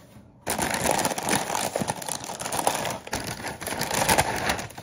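A chip bag being handled close to the microphone, crinkling loudly. The crinkling starts about half a second in and continues.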